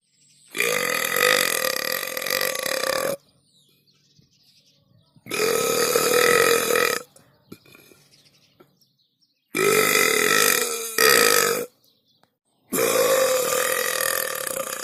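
A person burping: four long belches, each about two seconds, with short pauses between them.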